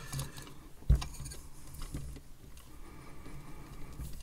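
Small clicks and handling noises of fingers working wires onto a charger's circuit board and pins, with one dull knock about a second in, over a low steady hum.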